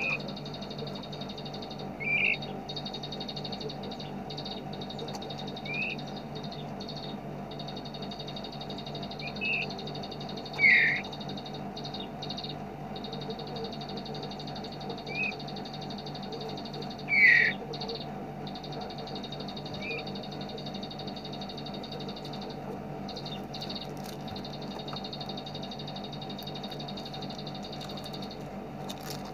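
Small songbird giving short, separate chirps every few seconds, the loudest about eleven and seventeen seconds in, over a steady high buzzing trill and a low hum.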